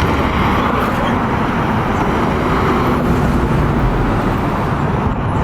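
Steady road-vehicle noise: an engine running with tyre and road rumble, and no siren or horn sounding.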